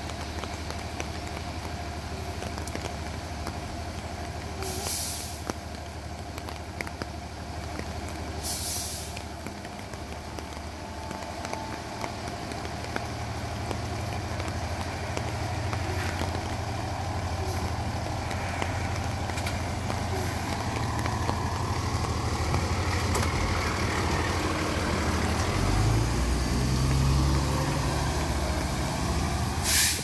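Fire engine's diesel engine running steadily, then revving louder as it pulls away near the end. Its air brakes give three short, sharp hisses: about five seconds in, about nine seconds in, and at the very end.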